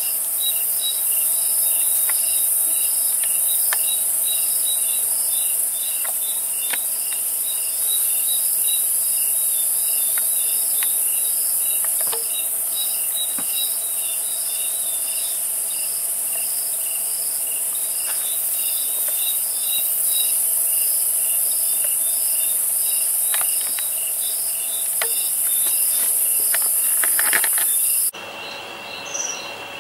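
Dense night-time insect chorus: a steady high-pitched shrill with crickets chirping in an even pulse over it, and a few faint clicks. Near the end it cuts off abruptly to a quieter, thinner chorus.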